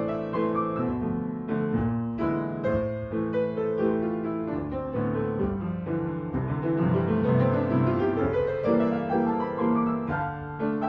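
Upright piano played solo: sustained chords and a melody, with a quick rising run of notes about two-thirds of the way through.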